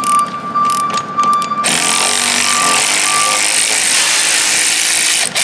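Pneumatic air ratchet on a long extension unscrewing the brake-hose bracket bolt on the rear suspension knuckle. A few short clicks and spurts, then it runs steadily for about three and a half seconds with a loud air hiss before cutting off suddenly.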